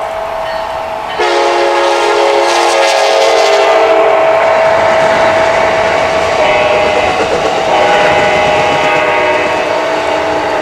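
Train horns blowing chords of several notes: one blast starts suddenly about a second in and lasts about three seconds, and a second horn sounds from about six and a half seconds until near the end. Steady rolling noise of trains on track runs underneath.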